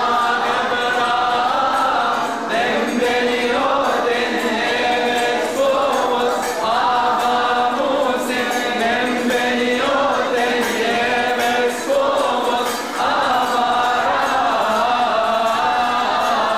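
A group of voices singing a church hymn together in a chant-like melody, in phrases a second or two long.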